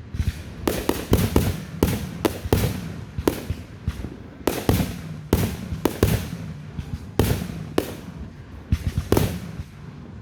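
Consumer 125-shot fireworks cake firing a rapid, uneven string of bangs, about two a second, each with a short crackling tail.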